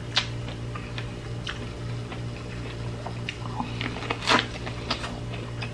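Close-miked eating sounds of corn on the cob: scattered wet mouth clicks while chewing, and a louder bite into the kernels about four seconds in, over a low steady hum.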